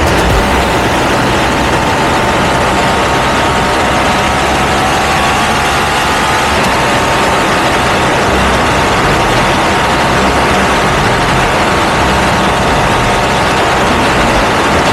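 Ducati V2 twin-cylinder engine running steadily through a Termignoni exhaust, its pitch holding nearly constant.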